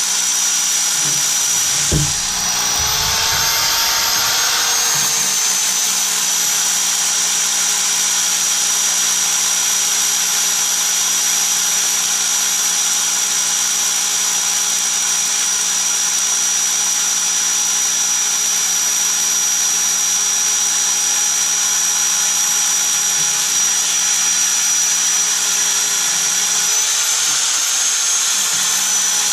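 Corded electric hammer drill boring a 12 mm masonry bit into stone, running steadily with a continuous motor whine over the grinding noise. The motor pitch rises briefly about two to five seconds in and again near the end, and there is a single knock about two seconds in.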